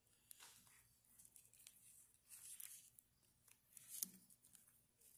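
Near silence with faint handling noise: fingers working a rubber cup seal into the bore of a G-body rear brake wheel cylinder, small scattered rubbing and clicking sounds, with a sharper click about four seconds in.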